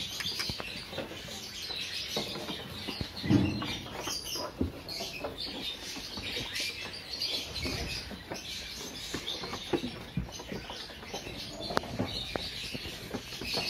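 Hooves of black Karnataka (tagaru) lambs knocking and shuffling on a wooden plank floor as they jostle, with a heavier thump about three seconds in and high chirping throughout.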